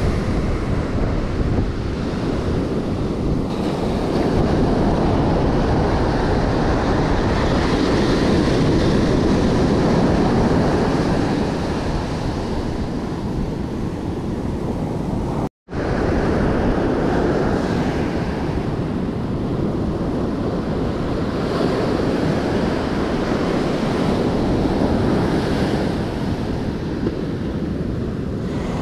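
Ocean surf breaking and washing up a sandy beach, with wind buffeting the microphone. The level swells and eases with the waves, and the sound drops out for a split second about halfway through.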